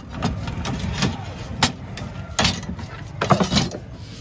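Steel cleavers and knives knocking and clinking together as they are picked out of a crate, a handful of separate sharp knocks. A steady low rumble runs underneath.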